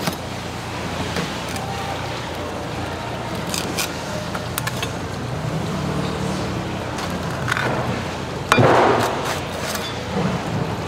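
Steady background noise of a busy fish shop, with scattered clicks and knocks from the knives and tools being handled at the cutting counter. A louder rush of noise comes about eight and a half seconds in and lasts about a second.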